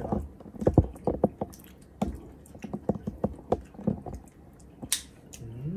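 Wet squelching of raw offal being handled and pressed by hand, in a run of irregular short squishes, with one sharper click about five seconds in.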